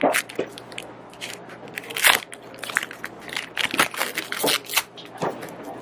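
Foil booster-pack wrapper crinkling and crackling as it is torn open and handled, in irregular sharp crackles.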